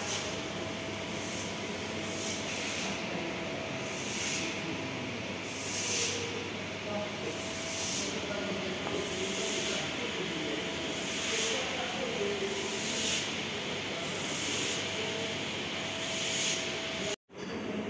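Steady workshop background noise with short bursts of hissing that repeat every second and a half or so, over a faint steady hum.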